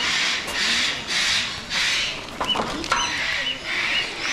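Birds calling: a run of harsh, raspy squawks repeating about every two-thirds of a second, then a few short high chirps from about halfway through.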